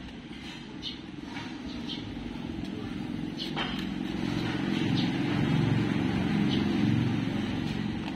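A passing motor vehicle: a low engine rumble that swells to its loudest in the middle and fades near the end. Faint short high ticks are scattered through it.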